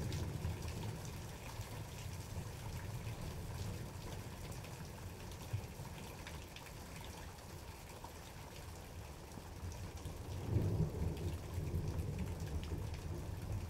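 Thunder rumbling low and fading away, then a new roll of thunder building about ten seconds in, over steady rain with individual drops ticking.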